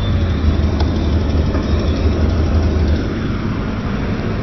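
Deep, steady bass from a car audio system's subwoofers, heard from outside the vehicle as a low rumble; the strongest bass drops away about three seconds in.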